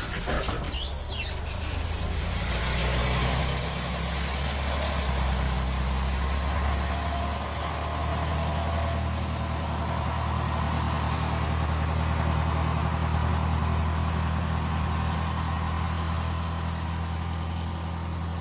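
An old city bus's engine running steadily with a low drone, after a brief high squeal about a second in.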